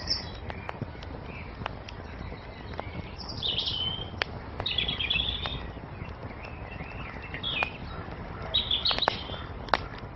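Wood fire crackling, with scattered sharp pops over a steady low hiss, while songbirds chirp in short bursts over it, several of them about three to four seconds in, around five seconds, and again near nine seconds.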